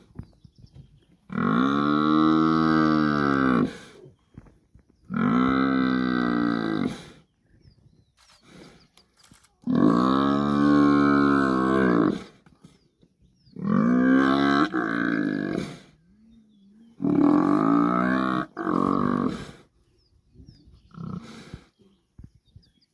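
A bull Cape buffalo pinned down by lions gives long distress bellows: five drawn-out moans a couple of seconds apart, each rising and then falling in pitch.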